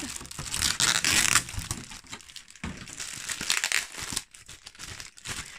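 Clear plastic blister packaging crinkling and crackling as it is handled and pulled about, in irregular spurts with a short lull about two and a half seconds in.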